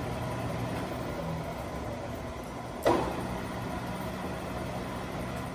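Enco 19-1/2" x 78" engine lathe with its 7-1/2 horsepower motor running, a steady mechanical hum, with a single sharp clunk about three seconds in.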